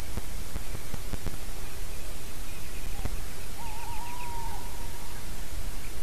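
Male tawny owl hooting: a short hoot, then the long final note of its song, quavering at first and then held steady. Faint rapid repeated notes of a distant songbird and a steady low rumble and hiss lie underneath.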